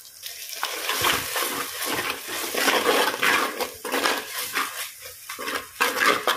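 Wet ground masala paste sizzling and crackling in hot coconut oil in a clay pot, with a steel spoon stirring and scraping against the pot. The raw paste is being fried to cook off its raw smell.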